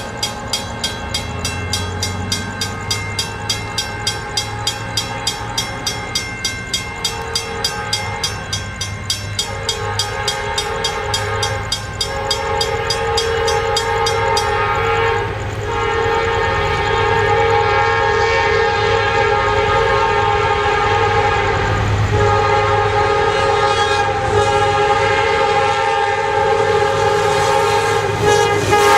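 An approaching CSX diesel freight locomotive sounds its air horn in long chord blasts with short breaks, louder toward the end, over the low hum of its diesel engine. Through the first half a crossing bell rings quickly, about two to three strokes a second.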